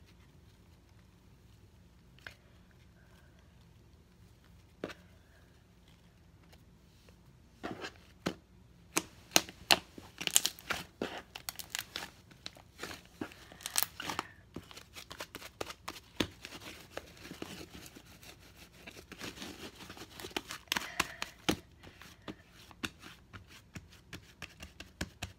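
Fluffy slime being squished and stretched by hand close to the microphone: sticky, crackling pops as air pockets burst. After a quiet start with a couple of single clicks, the crackling turns dense about eight seconds in and keeps going.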